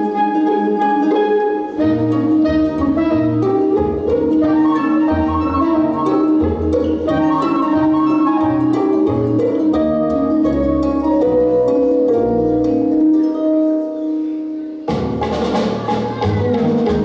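Instrumental music with a melody of held notes; a pulsing bass line comes in about two seconds in, and the music switches abruptly to a fuller, denser passage near the end.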